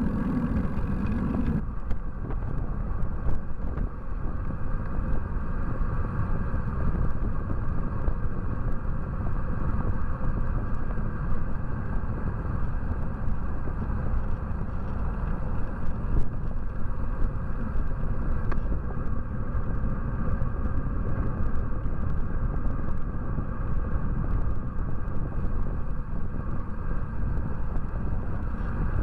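Wind buffeting a bike-mounted camera's microphone at descending speed: a steady, dense low rumble. It follows an abrupt cut about two seconds in, where a different sound with a low hum stops.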